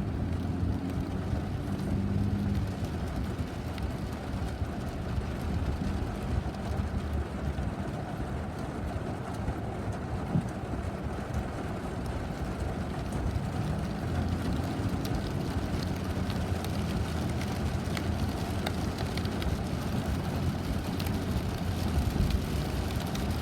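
Rain with road traffic: a steady low rumble of vehicles. An engine tone rises and falls faintly twice, about two seconds in and again about fourteen seconds in, with scattered light ticks of rain in the second half.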